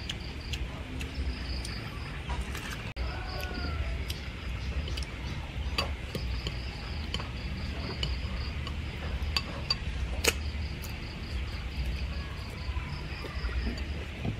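Steady pulsing chirps of crickets, with short clinks of a metal spoon against a bowl and small eating sounds; the sharpest clink comes about ten seconds in.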